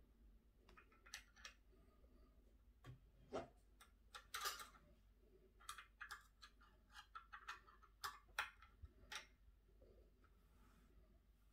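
Light, irregular metal clicks and handling noise as a chrome guitar strap lock is picked up and worked in the fingers, with a brief scrape about four and a half seconds in.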